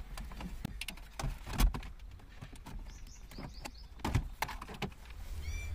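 Car stereo wiring plugs being unplugged while the metal head unit and its bracket are handled in the dashboard: scattered light clicks and knocks, with two louder knocks about one and a half and four seconds in. A bird chirps faintly near the end.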